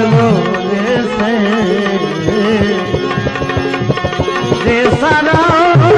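Bhajan music between sung lines: tabla drumming under a melody line that wavers and bends in pitch.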